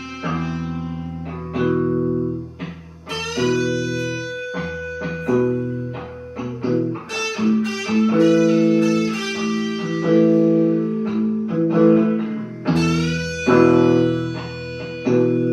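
Guitar playing an instrumental blues: plucked chords and single notes that ring and decay over low bass notes.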